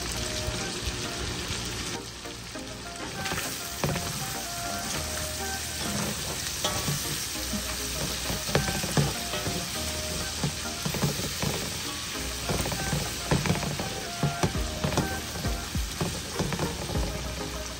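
Chicken, smoked sausage and cashews sizzling in a frying pan with sauce, stirred with a utensil that knocks and scrapes against the pan, the knocks coming more often in the second half.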